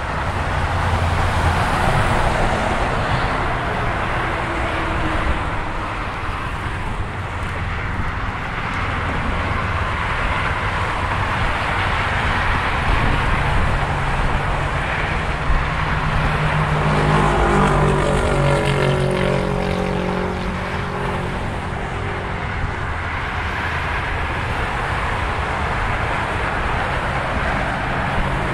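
Steady freeway traffic on Highway 15: tyre and engine noise from passing cars and trucks, swelling and easing as vehicles go by. Past the middle, one vehicle passes close with a hum that drops in pitch as it goes by.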